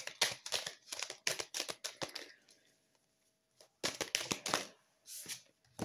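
A deck of oracle cards being shuffled by hand: a quick run of crisp card clicks and flutters for about two seconds, then after a pause two shorter runs.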